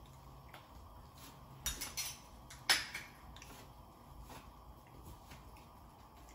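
A spoon and a small bowl clinking and knocking against the cookware a few times, the sharpest knock about two and a half seconds in, over a low steady background.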